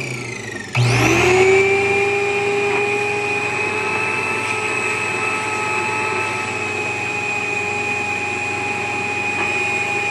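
Upright vacuum cleaner switched on about a second in, its motor whining up to speed and then running with a steady high whine. Near the end it is switched off and the pitch starts to fall.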